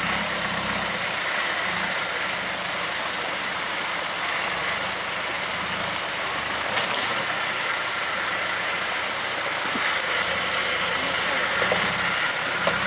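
Off-road Land Rover Defender's engine running steadily at low revs as the 4x4 crawls over a rock step in a stream, over the steady rush of the creek's water.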